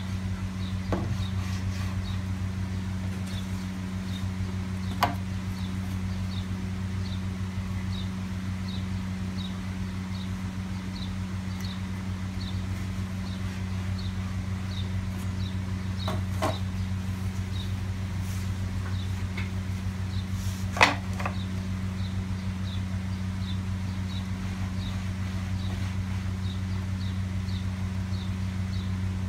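A few knocks and clunks as a circular saw blade and a wooden sharpening jig are handled and set in place, the loudest about two-thirds through. Underneath runs a steady low hum with a faint high chirp repeating about twice a second.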